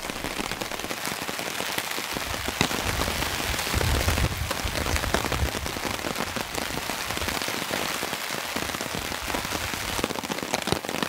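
Heavy rain falling steadily, with dense drops striking a tarp overhead. A low rumble swells and fades around four seconds in.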